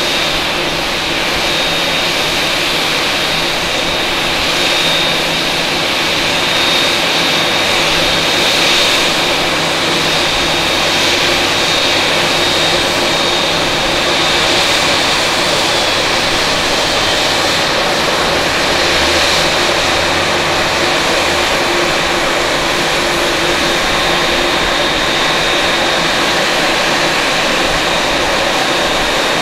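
Boeing 777-300 airliner's jet engines running steadily as it lands and rolls out, a dense rushing noise with a high steady whine. A deeper rumble swells briefly about two-thirds of the way through.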